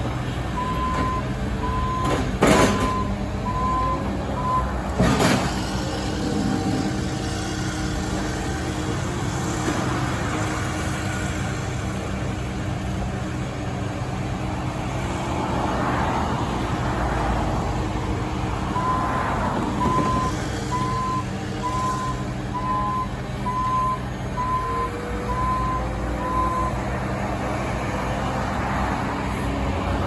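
Cat compact wheel loader's diesel engine running steadily, its reverse alarm beeping at one pitch about once or twice a second in two runs, near the start and again from about two-thirds through. Two sharp bangs come in the first few seconds, and cars pass around the middle.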